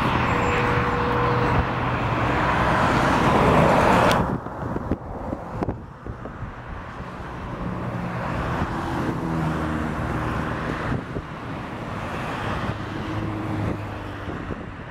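Airbus A320 jet engines and rolling noise during take-off: a loud, steady rush that drops abruptly about four seconds in. A quieter engine hum with steady low tones follows and builds slowly.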